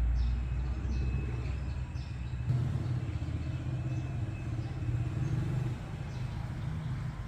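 Steady low rumble of nearby motor traffic, with faint short bird chirps above it, mostly in the first half.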